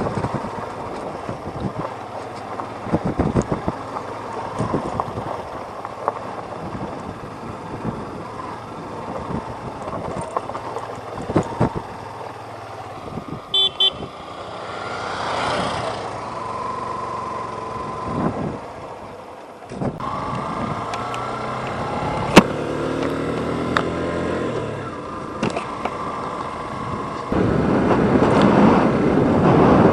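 Yamaha FZ motorcycle being ridden, its engine running under wind and road rush, with a brief horn toot about halfway through. The rush gets louder near the end.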